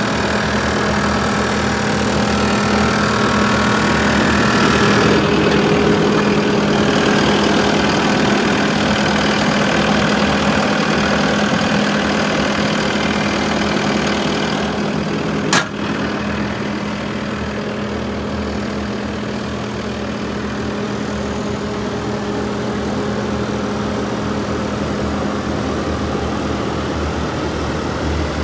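Bobcat S770 skid-steer loader's diesel engine idling steadily, with a single sharp click about halfway through.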